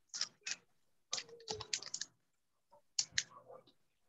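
Irregular bursts of clicking and clattering, like typing, heard over a Zoom call's audio. The sound cuts in and out sharply, with dead silence between bursts.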